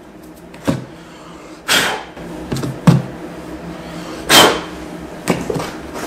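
Handling noises as parts and tools are moved about: scattered short knocks and clunks, with two louder swishing noises about two seconds and four and a half seconds in.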